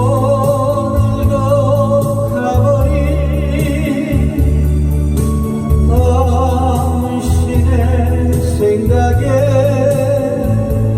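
A woman's voice singing a Korean popular song over a recorded accompaniment with a steady bass line, holding long notes with vibrato.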